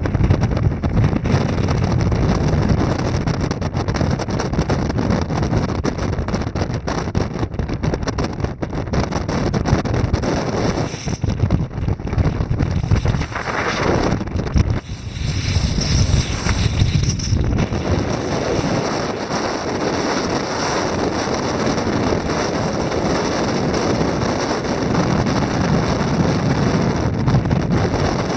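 Storm-force wind of close to 30 m/s blowing hard and buffeting the microphone: a loud, continuous, gusting rush with a heavy low rumble. It eases briefly about halfway through.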